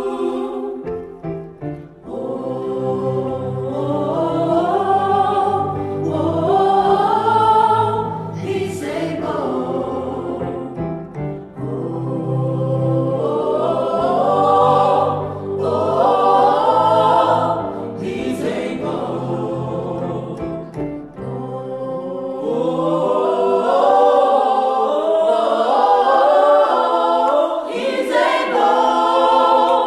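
A small mixed vocal group singing a gospel song in harmony, several voices at once. The long phrases swell and break off briefly about every nine or ten seconds.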